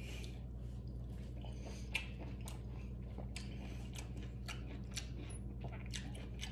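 Person eating: irregular small clicks and crackles of chewing and handling food, over a steady low hum.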